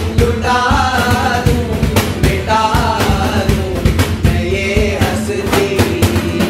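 A group of men singing together over two strummed acoustic guitars, with a steady percussive beat.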